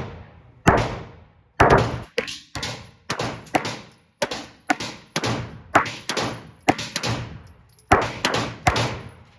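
A rapid, uneven string of handgun shots, roughly two a second, each with an echoing tail.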